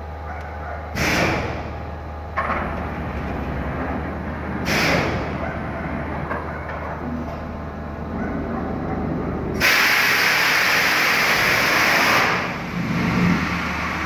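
Vacuum forming machine running its cycle: a steady low machine hum broken by short hisses of air about a second in and near five seconds. Then a loud, even rush of air lasts about two and a half seconds.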